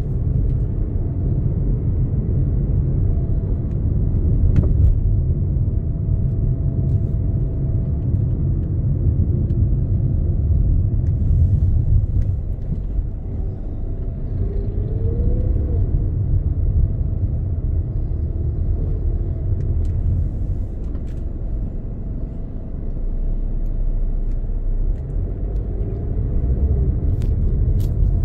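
Steady low rumble of road and engine noise heard inside a moving car's cabin, easing off a little twice as the car slows.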